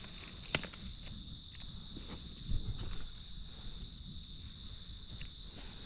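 A steady high-pitched insect chorus, with a few faint footsteps, the clearest about half a second in and around two and a half seconds in.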